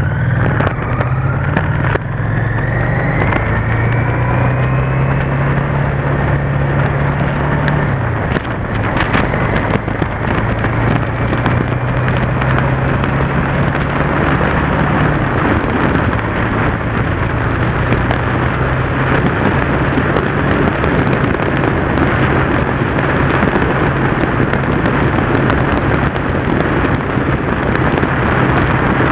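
Yamaha TDM parallel-twin motorcycle engine pulling through the gears: its pitch climbs, drops sharply about eight seconds in and again around fifteen seconds, then holds steady at cruising speed. Heavy wind rush on the bike-mounted camera runs under it.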